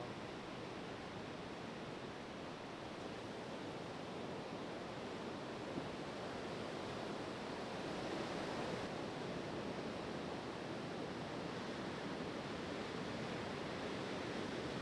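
Steady rush of ocean surf breaking on a sandy beach break, an even wash of noise with no distinct events.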